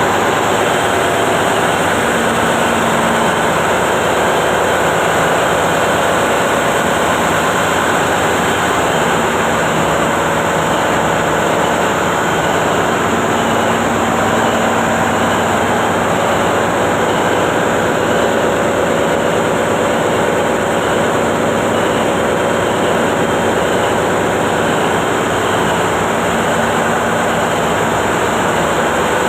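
Weichai diesel engine running steadily, its level and pitch holding constant throughout.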